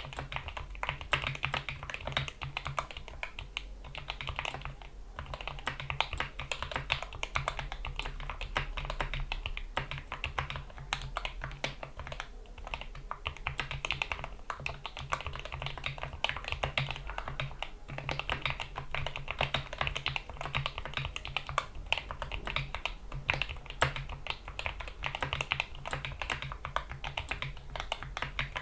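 Continuous fast typing on a GK61 mechanical keyboard with lubed Gateron Yellow optical switches, PBT keycaps and rubber O-rings under the keys, a dense stream of keystroke clicks with brief pauses about five and twelve seconds in. A steady low hum runs underneath.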